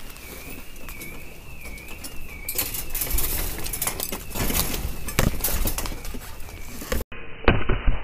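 Intruder alarm sounding, a high tone warbling steadily up and down. From about two and a half seconds in, loud crackling and rustling of branches and brambles as someone pushes through the undergrowth, and a sharp knock near the end.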